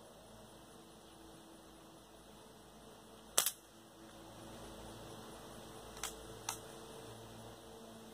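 One sharp pop of a BB gun firing a pellet, about three and a half seconds in, over a faint steady hum. Two fainter clicks follow about half a second apart, near six seconds in.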